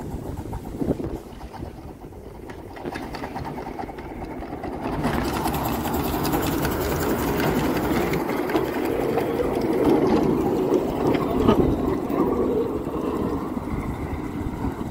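Miniature railway train passing close by: the locomotive and its open passenger carriages rumbling along the narrow track, growing louder about five seconds in as the train draws level, then staying loud as the carriages go past.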